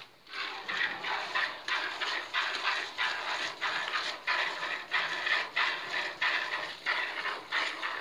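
Hand milking of a cow into a plastic bucket: short hissing squirts of milk, about two to three a second, in a steady rhythm.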